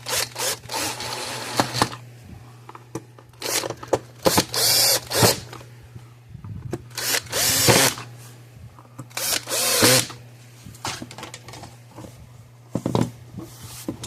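Power drill running in short bursts of one to two seconds, four main runs, its motor pitch rising and falling as it spins up and stops.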